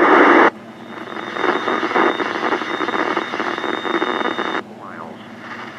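Weather radio receiver hissing with static on a channel whose station is off the air, a loud burst of static at first, with a faint steady whine in the hiss. The static drops to a lower hiss about four and a half seconds in.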